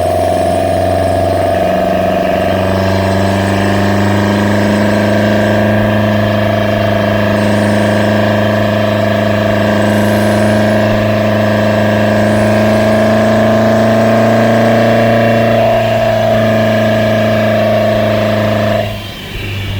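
Small-port 4A-GE 16-valve four-cylinder of a 1986 Toyota AE86 Sprinter Trueno, breathing through individual throttle bodies, running at a steady engine speed with an even, unchanging drone. Near the end the note drops away briefly.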